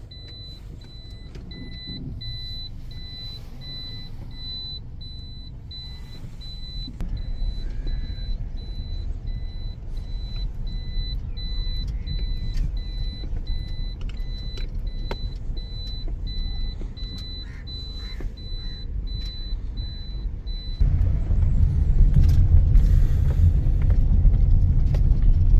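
Car engine running with a high warning chime beeping over and over, a little under twice a second. The chime stops about 21 seconds in and the engine sound grows much louder, as when the car pulls away.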